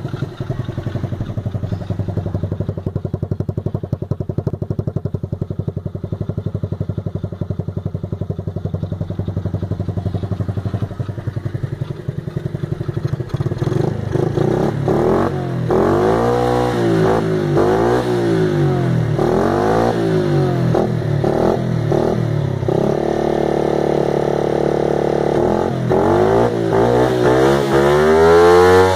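An engine running at idle with an even, fast pulse. From about halfway it is revved up and down repeatedly, held at high revs for a few seconds near the end, then revved again.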